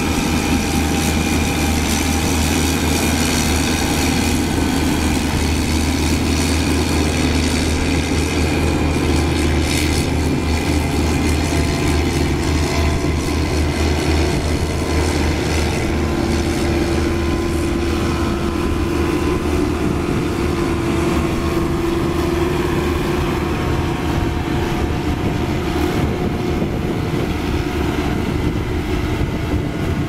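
Diesel engines of a Caterpillar 12K motor grader and a Caterpillar CS533 single-drum soil compactor running as they work. A heavy low rumble dominates at first and fades after about ten seconds, while a steady drone with a humming tone carries on.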